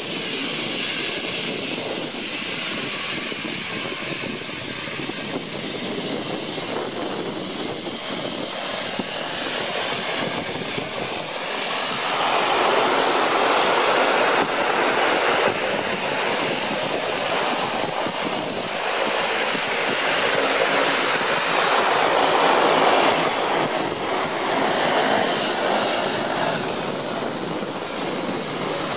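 Turboprop engines of a de Havilland Canada Twin Otter floatplane idling: a steady high whine over a constant rushing noise, the whine rising slightly in pitch near the end.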